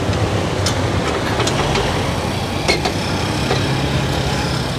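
Steady road traffic noise with a low engine hum, and a few sharp metallic clicks as a wheel clamp is fitted and locked onto a van's wheel.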